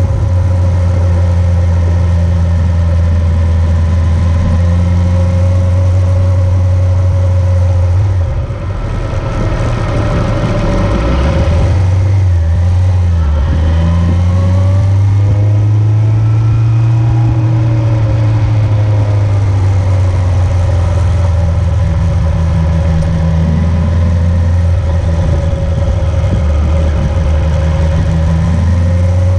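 A vehicle engine running steadily while under way. About eight seconds in, the sound dips briefly and the engine pitch shifts, gliding up and down for several seconds before settling back to a steady note.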